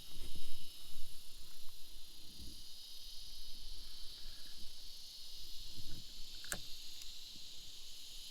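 Steady chorus of insects droning in the heat, with a few low thumps and rumbles and one sharp click about six and a half seconds in.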